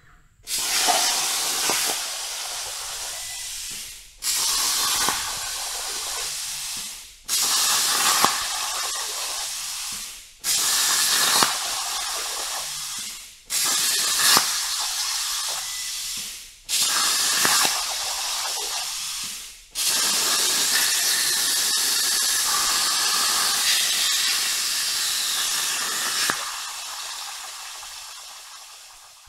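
Langmuir Systems CNC plasma table's torch cutting metal plate: seven separate cuts, each starting with a sharp burst and then a steady loud hiss. Six short cuts of about three seconds with brief gaps between (the bracket's six holes), then one longer cut of about six seconds (the outline) that tails off near the end.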